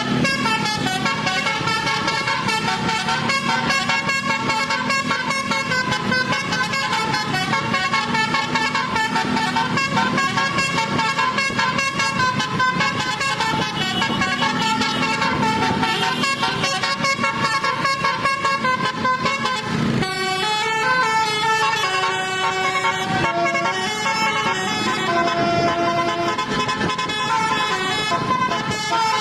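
Indonesian bus 'telolet' horn of the basuri type, a set of air trumpets playing a melody note by note. It stops briefly about twenty seconds in, then carries on with another run of clearer, more separate notes.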